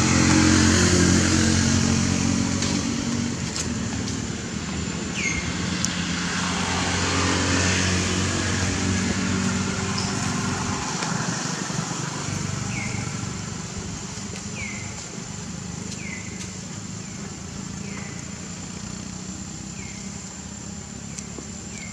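A motor vehicle's engine running and slowly fading away, with a steady high thin whine underneath. From about halfway, short downward chirps repeat every second or two.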